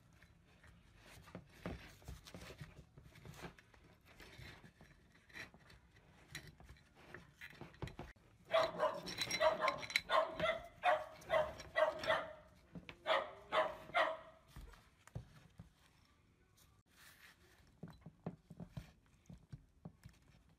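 A dog barking, a run of about a dozen barks starting about eight seconds in and lasting some six seconds. Light clicks and scrapes of metal parts being handled can be heard around it.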